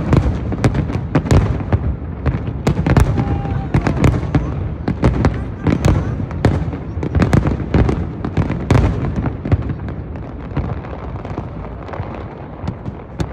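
Aerial fireworks display: shell after shell bursting in a rapid, dense run of sharp bangs that overlap one another. Over the last few seconds the bangs thin out and get quieter.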